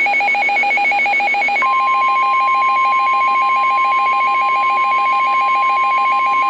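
Emergency Alert System attention signal: a loud, rapidly pulsing two-pitch alert tone, joined about a second and a half in by a steady single tone. It announces the start of a severe thunderstorm warning broadcast.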